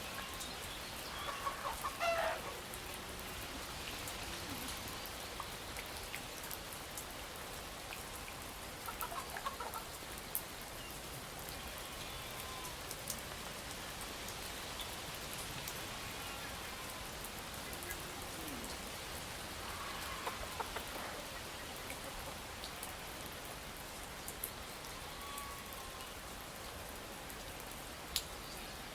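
Steady rain, with chickens clucking briefly a few times: about two seconds in, near ten seconds and again near twenty-one seconds.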